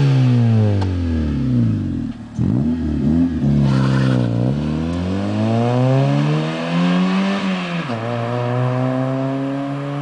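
Honda Civic engine and exhaust revving up and down through the rev range several times. Near the end the revs drop suddenly, as at a gear change, then climb slowly and steadily.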